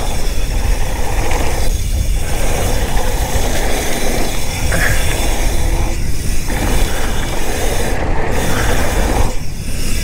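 Mountain bike descending a dirt downhill trail at full speed: a steady rush of wind buffeting the camera microphone, mixed with tyres running over dirt and the bike rattling over the bumps.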